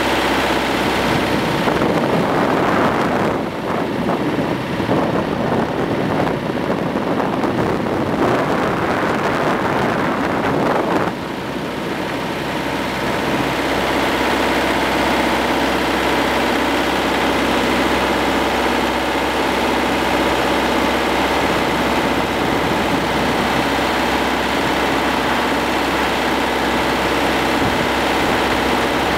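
Hürlimann D70 tractor's diesel engine running steadily as it drives along the road, heard from the driver's seat. A rougher, noisier stretch over the engine sound stops abruptly about eleven seconds in.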